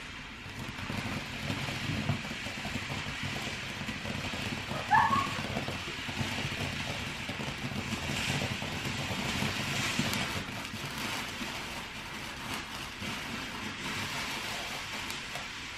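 Ground fountain firework spraying sparks with a steady hiss and light crackling.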